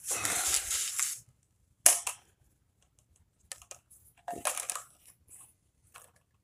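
A thin head gasket is handled and laid flat onto an aluminium cylinder head. There is a rustling scrape over the first second, a sharp click about two seconds in, and another short rustle a little past four seconds.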